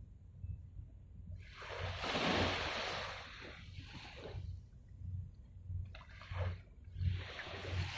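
Small waves washing and splashing against the shore in two swells, one about two seconds in and one near the end, over a low rumble.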